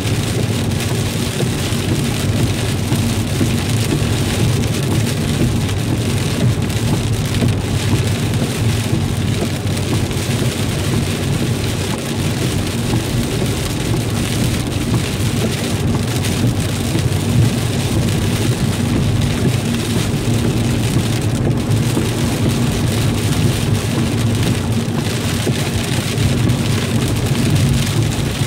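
Rain falling on a car's roof and windshield, heard from inside the cabin, over a steady low hum of the car and its tyres on the wet road. The sound stays even throughout, with no single loud event.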